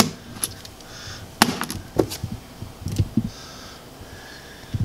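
Small metal parts from a transmission cooler's thermostat (a nut, a spring and a brass thermostat valve) being handled and set down on a hard countertop: several sharp clicks and taps.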